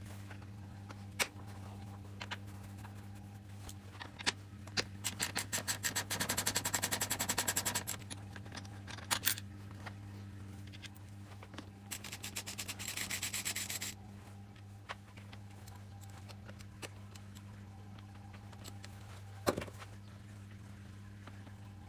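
Hand-tool work on a motorcycle brake master cylinder during its strip-down. There are two runs of rapid, evenly spaced clicking, one about four seconds in and one about twelve seconds in, and a few sharp single knocks, all over a steady low hum.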